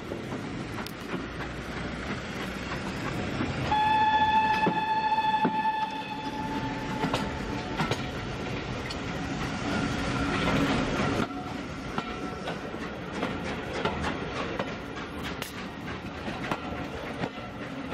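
A heritage passenger train running, its wheels clattering steadily, heard from a carriage window. About four seconds in the locomotive sounds one long, high, steady whistle that lasts about four seconds.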